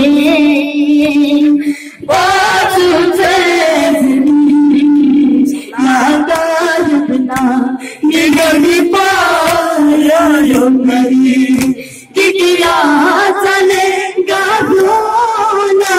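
A boy singing solo into a microphone, a devotional lament (noha) in long held, wavering phrases broken by short pauses every two to four seconds.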